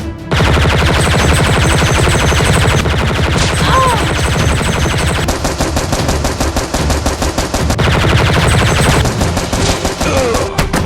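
Rapid, sustained automatic gunfire sound effects for a Nerf-gun battle, starting abruptly about a third of a second in.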